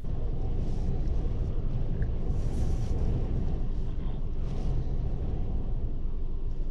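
Strong gale-force storm wind buffeting the microphone, a steady deep rumble that starts abruptly.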